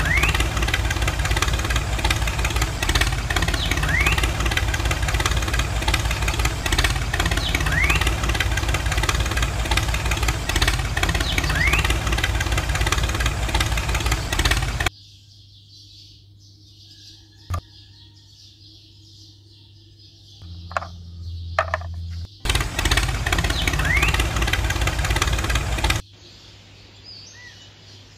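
An engine running steadily, with a short rising chirp about every four seconds. It cuts off abruptly about halfway through. A quiet stretch follows with a single click and a brief low hum, then the engine sound returns for a few seconds and cuts off sharply again.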